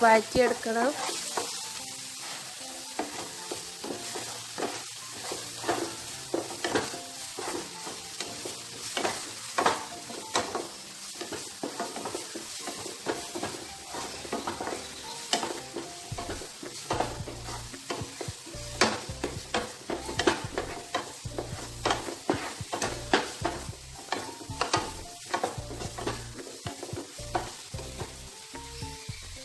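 Crushed green chillies and ginger-garlic paste sizzling in hot oil in a frying pan while a wooden spatula stirs and scrapes them, with frequent irregular scrapes and taps against the pan. This is the masala being sautéed for a brinjal pickle.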